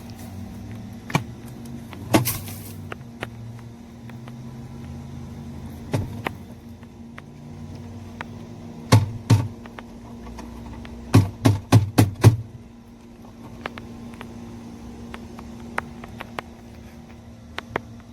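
Scattered sharp clicks and knocks of things being handled, with a quick run of five about eleven to twelve seconds in, over a steady low hum.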